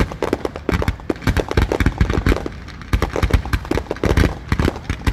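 Rapid barrage of firework shells bursting, several booms and cracks a second with a short lull midway.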